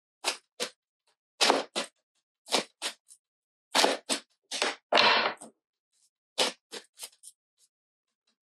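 Rider-Waite tarot deck being shuffled by hand: short crisp card snaps, many in quick pairs, with a longer shuffle about five seconds in.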